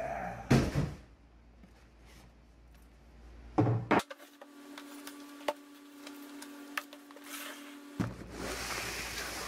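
Cardboard packaging being tossed aside and cardboard boxes being handled: a loud knock about half a second in and another near four seconds, then a box scraping and rustling as it is pushed across the table near the end.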